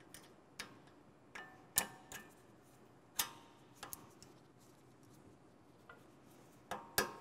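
Scattered light metallic clicks and taps of brake pad retaining pins and the spring clip being fitted into a four-piston brake caliper, a few with a short metallic ring. About ten in all, irregularly spaced, with a quicker pair near the end.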